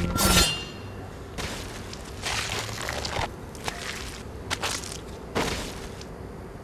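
A loud crash with a brief ringing in the first half second, then several short, irregular scuffing or knocking noises spread through the next few seconds.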